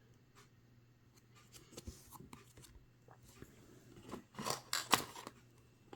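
Trading cards being handled: quiet scattered clicks and rustles, with a few louder rustles near the end.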